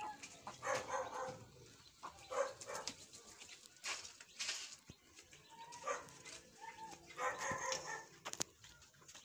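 A dog barking repeatedly: short barks about every second, with pauses between.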